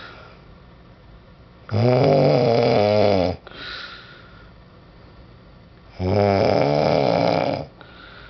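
Snoring: two loud snores about four seconds apart, each about a second and a half long and wavering in pitch, each followed by a softer breath.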